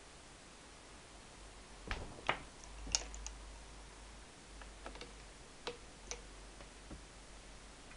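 Scattered sharp clicks and light knocks from a hand handling a cable against a car stereo head unit's plastic front panel. The loudest come in a quick cluster about two to three seconds in, followed by lighter ticks.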